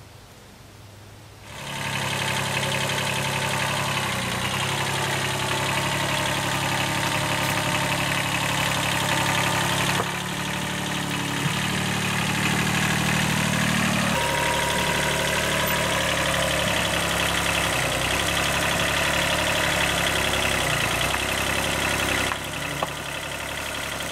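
Compact tractor's engine running while its front-end loader bucket pushes soil back into a trench, the engine note shifting as it works. It comes in suddenly about a second and a half in and eases a little near the end.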